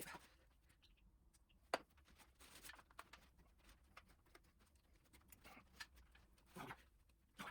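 Near silence in a small room, broken by a few faint, scattered clicks and knocks. A sharper knock comes just under two seconds in and a small cluster near the end.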